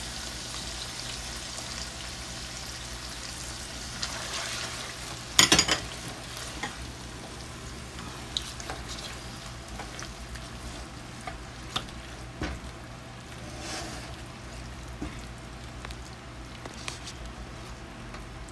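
Chicken livers and freshly added sauce sizzling in a frying pan over high heat, stirred with a silicone spatula, with scattered knocks and scrapes of the spatula against the pan. A loud cluster of knocks about five and a half seconds in is the loudest sound, and the sizzle is strongest in the first couple of seconds.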